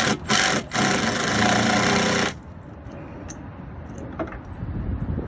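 Power drill driving a screw into Trex composite decking: two quick bursts of the trigger, then a steady run of about a second and a half that stops about two seconds in.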